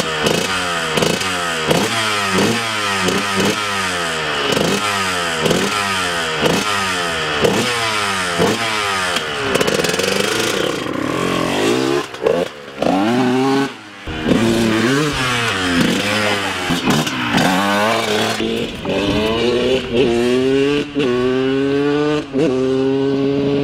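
Two-stroke Honda CR dirt bike engine, freshly kickstarted for its first start of the year, revved in quick repeated blips. Near the middle it pulls away, its pitch climbing again and again as it goes up through the gears.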